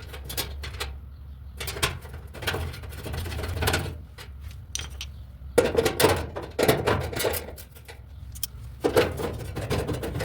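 Irregular clicks, taps and knocks of metal parts being handled during work on a clothes dryer's drum support rollers, over a steady low hum.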